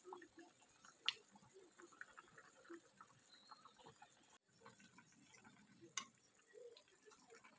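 A pot of chicken soup simmering, with faint bubbling pops throughout. A metal fork clicks sharply twice against the utensils, about a second in and again near six seconds, as it pokes the vegetable pieces to test them.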